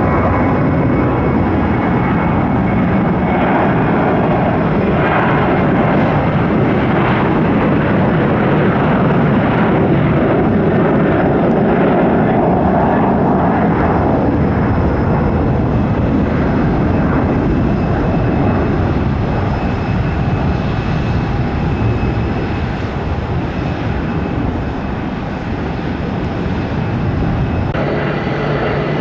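Boeing 737-800's CFM56-7B jet engines at take-off thrust: a loud, steady roar that eases somewhat after about twenty seconds as the jet climbs away. Near the end it cuts suddenly to a different jet sound with a steady hum.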